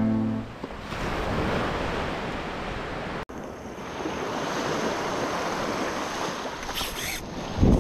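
Small waves washing onto a sandy shore, with wind on the microphone. A short, low thump comes near the end.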